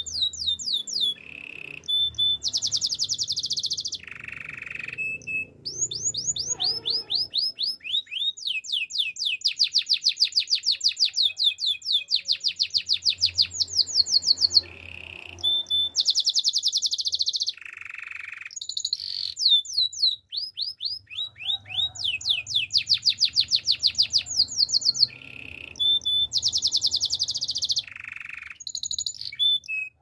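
Male canary singing a long, continuous song: rapid trills of quick, repeated downward-sweeping notes, alternating with short, lower held notes, phrase after phrase.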